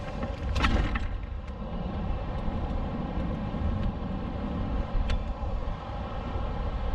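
Strong gusty wind buffeting the microphone of a camera mounted on a hang glider, a steady low rumble. A short burst of noise comes just over half a second in, and a sharp click about five seconds in.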